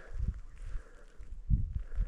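Footsteps on snowshoes in deep snow: two muffled steps, about a second and a half apart.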